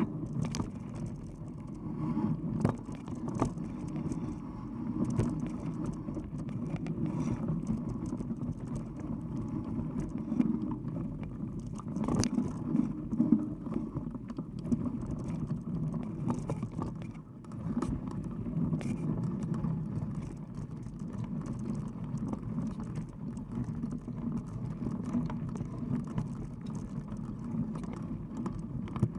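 Mountain bike rolling over a dirt trail, heard through a camera mounted on the bike: a steady rumble of knobby tyres and vibration, with scattered clicks and rattles over bumps and a sharper knock about twelve seconds in.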